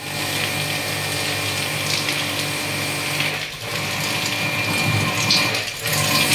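Jet pump (portable pressure washer) running steadily with a hissing water spray on a split AC's outdoor unit, easing off briefly about halfway through and again near the end.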